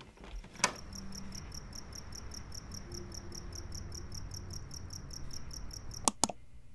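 A cricket chirping in a fast, even pulse of about seven chirps a second over a low hum. A sharp click comes about half a second in, and two more clicks near the end, where the chirping stops.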